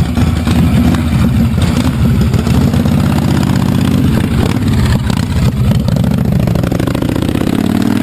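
Motorcycle engine running loud and steady with a fast exhaust pulse, its pitch rising near the end as it is revved.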